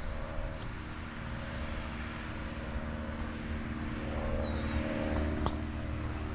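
Steady engine drone with a low hum and several held pitches. A short high chirp comes about four seconds in, and a single sharp click about a second later.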